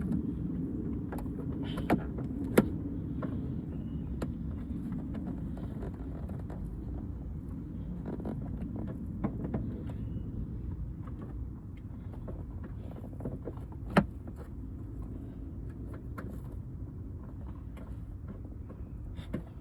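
Scattered sharp clicks and knocks of plastic interior roof trim and its clips being pried and pulled at, the loudest a couple of seconds in and again about fourteen seconds in, over a steady low rumble.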